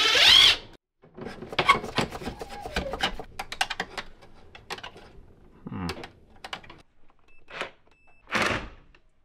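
A cordless drill-driver whines, rising in pitch, then cuts off within the first second. After that come scattered clicks, knocks and rattles of screws, tools and wire being worked in a metal electrical box and breaker panel, with a couple of short bursts of noise.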